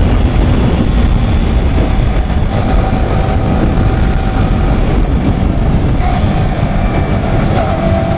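Motorcycle riding at speed: a steady rush of wind on the rider's microphone with the engine's drone underneath.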